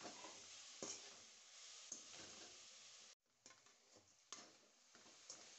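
Near silence, with a few faint ticks and scrapes of a metal spatula stirring grated coconut and sugar in a kadhai.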